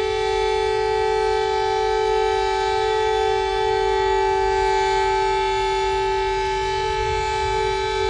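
Portuguese fire alarm siren sounding one loud, steady held tone that neither rises nor falls.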